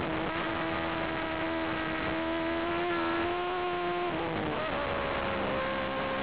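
Formula 1000 race car's 1000cc superbike engine running at high revs, heard from an onboard camera: a steady, high engine note that climbs slightly, then changes pitch about four seconds in.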